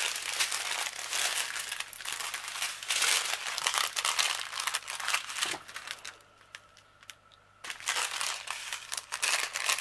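Small plastic bags of diamond-painting drills crinkling as they are handled, with a pause of about a second and a half a little past halfway.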